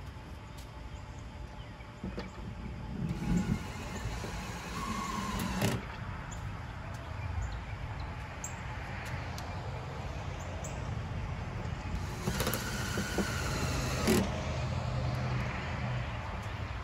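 DeWalt cordless drill driving roofing screws through plexiglass in a few short runs, with sharp knocks between them, over a steady low rumble.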